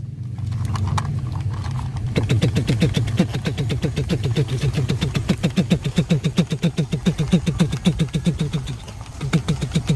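Toy twin-propeller military plane running, its propellers spinning: a low hum, then from about two seconds in a rapid, even mechanical clatter of about five beats a second, briefly fading near the end.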